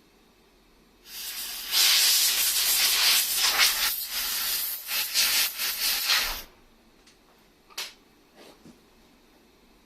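A loud blast of pressurised spray hissing, pulsing slightly, for about five seconds before cutting off sharply, followed by a few light clicks.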